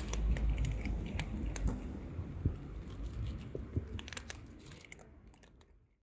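Several cats crunching dry kibble from paper plates, with many sharp crunches over a low rumble. The sound fades away near the end.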